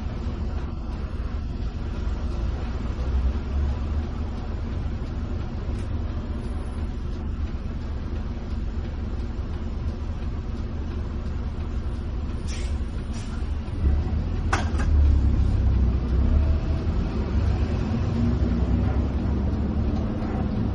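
Inside a coach's cabin while it drives: a steady low rumble of engine and tyres, with a few short sharp clicks about two-thirds of the way through.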